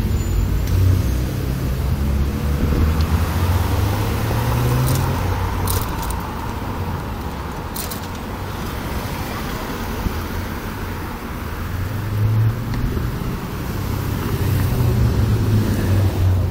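City street traffic heard from a moving bicycle: car engines and tyre noise make a steady low rumble, with a few brief sharp clicks about halfway through.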